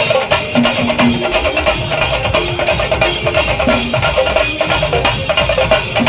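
Kerala chenda drum troupe playing loudly in a fast, dense rhythm of rapid stick strokes.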